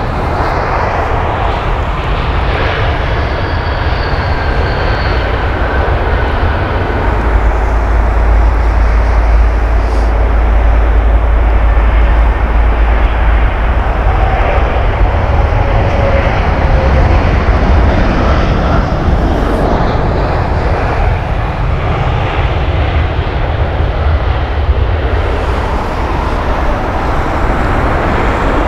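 Jet airliner passing low on its landing approach: a steady rumble of jet engines that swells about a quarter of the way in and stays loud through the middle, with faint whines sliding down in pitch as it goes by.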